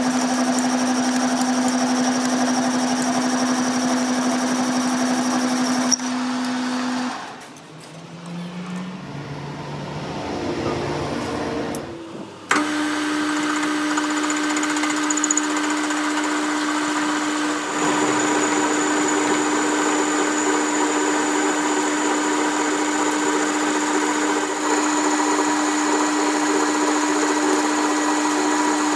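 Electric power-tool motor running at a steady pitch. About seven seconds in it stops, with a few low sliding sounds while it is off. About twelve seconds in it starts again abruptly and runs steadily at a slightly higher pitch.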